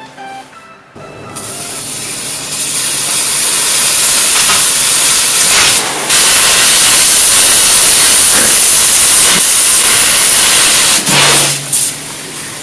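Red-hot steel knife blade sizzling as it burns through a plastic cola bottle into the cola. The loud hiss starts about a second and a half in, dips briefly twice and tails off near the end as the blade is drawn out.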